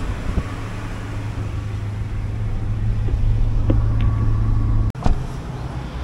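Car cabin noise while driving on a wet road: a steady low engine and tyre hum that grows a little louder, then cuts off abruptly about five seconds in, followed by a short knock and quieter outdoor ambience.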